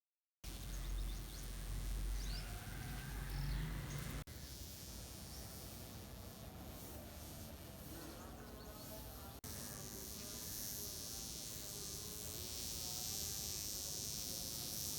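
A grounded wasp with droopy wings buzzing its wings without taking off, in uneven stretches. It starts after a moment of silence, has a low rumble under the first few seconds, and cuts off abruptly twice, about 4 and 9.5 seconds in.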